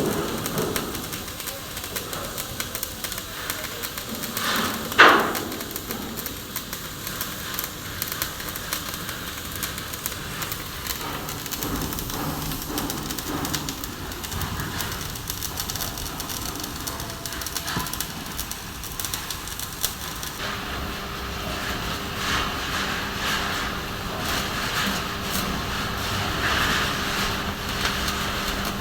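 Electric arc welding: the arc gives a steady crackling hiss. A brief louder sound comes about five seconds in, and a low steady hum joins in about two-thirds of the way through.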